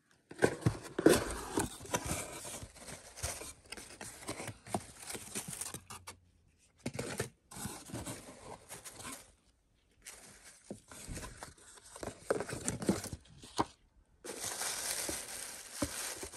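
Cardboard and paper packaging handled and opened by hand: rustling and crinkling paper and shifting cardboard flaps, with sharp taps and clicks, in several bouts with brief gaps between. Near the end, shredded paper filler rustles steadily as a small boxed gift is lifted out.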